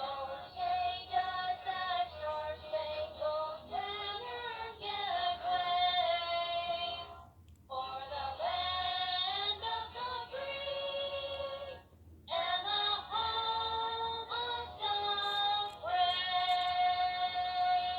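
A high, melodic, singing-like voice that sounds synthetic. It moves through stepped notes in three phrases, with short breaks about seven and a half and twelve seconds in.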